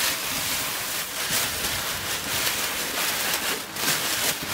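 Crinkling and rustling of a sheet of foil heat-reflective insulation being handled and pressed into place, a loud, irregular crackling hiss.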